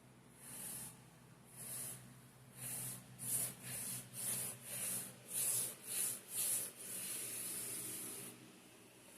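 Brush strokes of varnish across an oil-on-canvas painting, a dry hissing swish with each stroke. They come slowly at first, then about two a second, ending in one longer sweep near the end.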